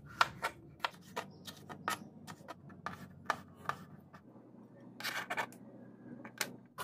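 Kitchen knife slicing bell peppers on a plastic cutting board: irregular sharp clicks, about two to three a second, as the blade strikes the board. About five seconds in comes a short scrape as the cut pieces are swept off with the blade.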